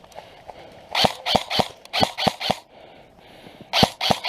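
Airsoft guns firing in quick runs of sharp cracks, about four or five shots a second: one string from about a second in, a short pause, and another starting near the end.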